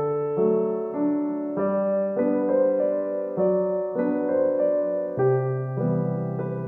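Background piano music: a gentle melody of single notes changing about every half second over low held chords.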